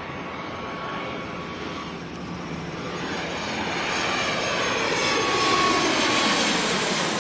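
Aircraft engine noise, a steady rushing drone that grows gradually louder and peaks about five seconds in, like a plane passing overhead.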